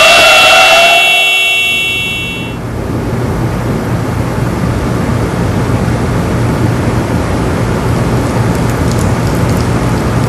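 A sustained high multi-toned sound fades out over the first two seconds or so. It gives way to a steady, even hiss of ambient noise, rain-like, with a low hum underneath.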